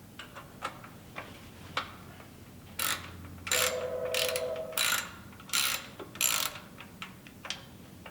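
A ratcheting mechanism clicking in a run of short rasping strokes, about five of them from about three seconds in, after a few lighter clicks, as the recoil starter is refitted to a Honda engine.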